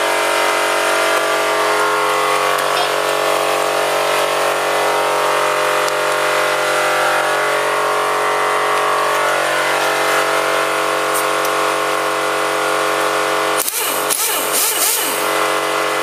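Steady mechanical hum, one constant pitch with many overtones and no change in speed. About two seconds before the end it is broken by rustling and knocking.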